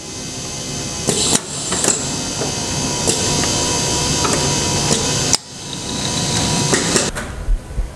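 Pneumatic handling-station machinery on a Festo modular processing system: a steady mechanical running noise with several sharp clicks and knocks as the gantry's gripper cylinder lifts and moves. The running noise drops out briefly about five and a half seconds in.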